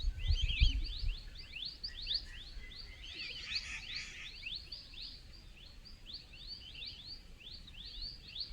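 Birds chirping in a dense forest chorus: many quick, repeated high sweeping notes overlapping throughout. A brief low rumble about half a second in.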